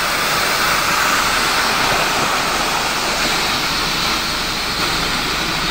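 Steady rush of muddy floodwater from a burst dam pouring across a road, with a truck engine running underneath as a low hum.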